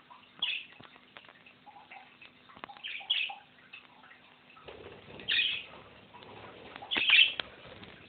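Pet parrots calling: four short, loud calls a couple of seconds apart, with light clicks and taps in between. A low rustling joins from about halfway.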